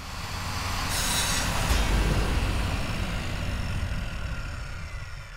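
Intro logo-reveal sound effect: a rumble swells in with a hiss about a second in, then a deep booming hit just before two seconds, followed by a long rumbling tail that slowly fades out.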